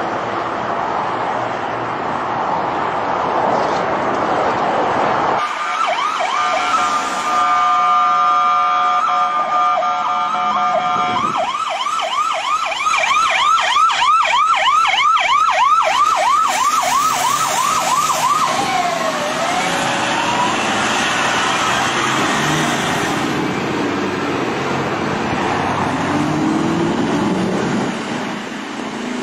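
Police siren: held tones at first, then about halfway through a fast yelp of several rises and falls a second, which ends in one slower falling-and-rising glide. Vehicle noise fills the start and the last part.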